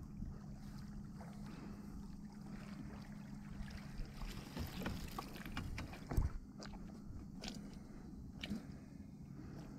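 A landing net with a catch being hauled out of the water and over the side of a small boat: scattered knocks, clicks and scrapes against the hull, the loudest a thump about six seconds in, over a steady low hum.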